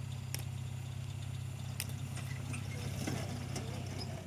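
Modified Suzuki Escudo's engine idling steadily, with a few faint clicks over it.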